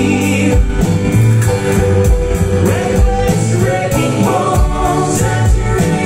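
Live bluegrass-style band playing a song: mandolin, acoustic guitar, double bass and drum kit under sung vocals, with a steady drum beat.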